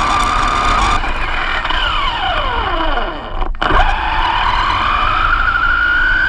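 RC car's motor whining as it drives over dirt: the pitch drops steeply as it slows, the sound cuts out briefly about three and a half seconds in, then the whine climbs again as it speeds up. A low rumble from the tyres on the dirt runs underneath.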